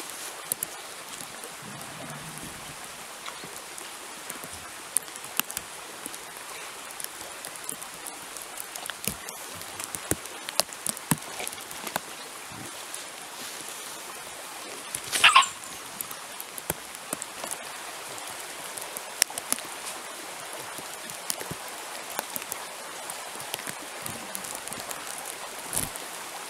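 A knife peeling and cutting a beetroot, heard as scattered short clicks and scrapes over a steady background hiss. About halfway through there is one short, high yelp that falls in pitch.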